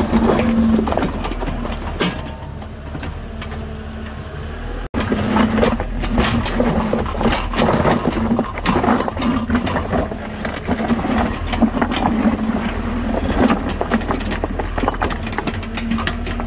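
Diesel engine of an IHI IS30GX mini excavator running steadily with a constant hum. From about five seconds in, many knocks and clatters are heard as the steel bucket scrapes through loose rocks and soil.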